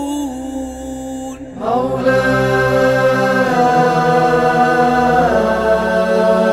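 Unaccompanied Aleppine funeral chant (tajwiq al-mayyit) in long held notes. One voice holds a note, then a chorus of male voices comes in louder about a second and a half in and sustains the chant, stepping to a new pitch twice.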